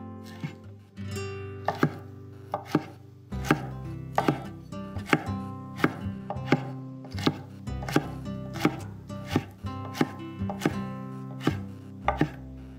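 Chef's knife chopping carrot and broccoli on a wooden cutting board: sharp knocks of the blade on the board, sparse at first, then a steady run of about two to three a second.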